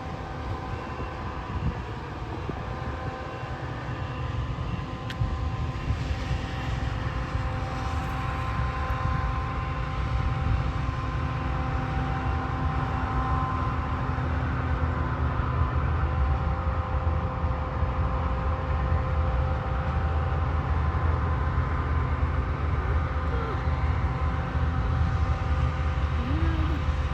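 Combine harvester running steadily while harvesting wheat: an even engine and machinery drone with steady whines over it, growing a little louder over the first ten seconds.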